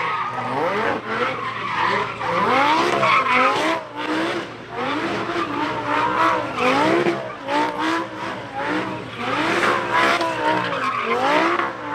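A car doing donuts: its engine revs up and down over and over while the tyres screech on the pavement.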